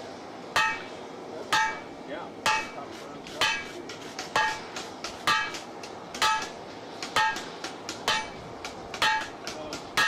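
Hand hammer striking red-hot steel bar stock in a bottom swage on an anvil, with a steady rhythm of about one heavy blow a second, each ringing briefly. Lighter taps come between the blows in the second half.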